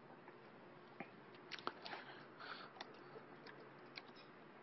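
Faint, irregular clicks of keys being pressed on a computer keyboard.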